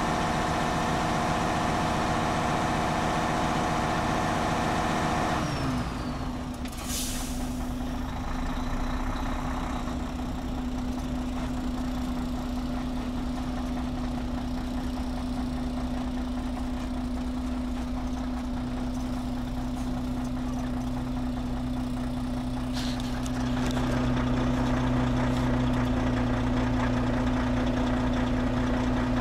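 Diesel truck engine pulling a loaded low-loader, its note falling away about five seconds in as it slows to idle. A short air-brake hiss follows, and a second one comes later, after which the idling engine runs a little louder.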